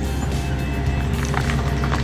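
A steady machine engine hum with music over it.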